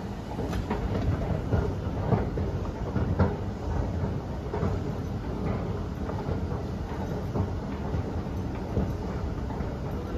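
Escalator running: a steady low rumble with irregular clacks from its moving steps.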